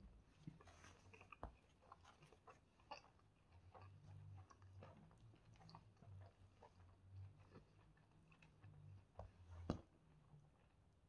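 Faint chewing of chicken shawarma and pita, with many small irregular wet clicks and crackles, and one sharper click near the end.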